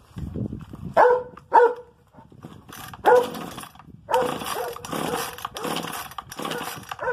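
A dog barking repeatedly in short, sharp barks: two loud ones about a second in, then a faster run of about two barks a second in the second half.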